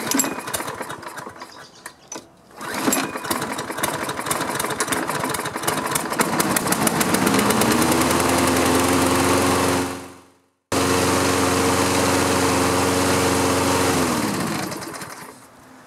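Toro Recycler walk-behind lawn mower's single-cylinder engine starting about two and a half seconds in, rising in speed, then running steadily. It is running smoothly with its freshly sharpened and balanced blade, warming the oil before an oil change. Near the end its pitch falls and the sound dies away as it shuts off.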